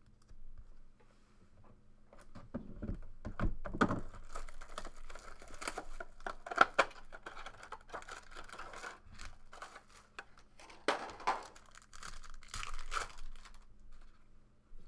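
Plastic wrapping crinkling and tearing as a sealed box of trading cards is opened by hand. Scattered small clicks run through it, with one sharp click about six and a half seconds in.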